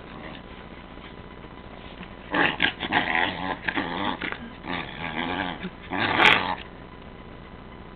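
Small dog growling and grunting in play while being rubbed, a run of wavering, pig-like growls starting about two seconds in and lasting about four seconds, loudest near the end.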